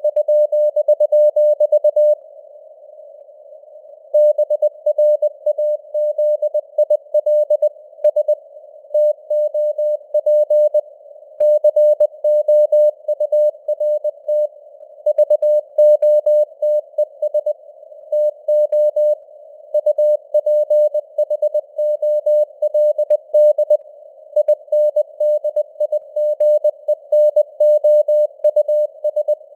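Morse code (CW) at 20 words per minute: a single tone of about 600 Hz keyed on and off in dots and dashes, inside a narrow band of simulated radio noise whose signal strength slowly fades and recovers (QSB). A pause of about two seconds falls shortly after the start, between words.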